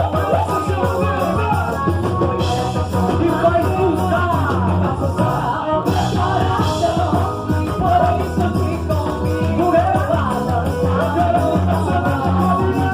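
Upbeat Brazilian festa junina music with singing over a steady beat and strong bass.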